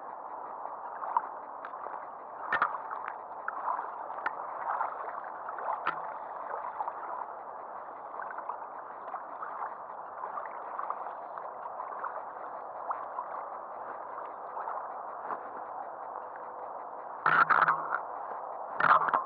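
Small waves lapping against the boat with a steady wash of water and scattered light ticks. A few louder knocks come near the end.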